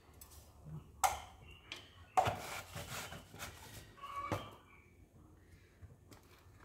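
Metal ladle knocking and scraping against a metal soup pot while the soup is seasoned and stirred: a few separate clinks, one followed by about a second of scraping and another ringing briefly.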